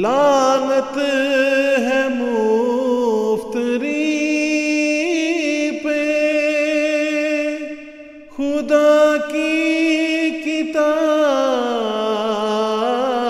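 A solo voice chanting an Urdu nazm (devotional poem) in long held notes with a wavering, ornamented melody. There is a short break for breath about eight seconds in.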